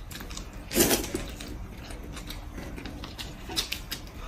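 Close-up eating sounds: a short slurp of noodles about a second in, then soft chewing and small clicks at the table.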